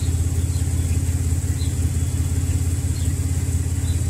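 Car engine idling steadily, heard right at the tailpipe as a low, even exhaust note. The engine is on a long idle so a head gasket sealer can seal a leaking head gasket that is putting smoke into the exhaust.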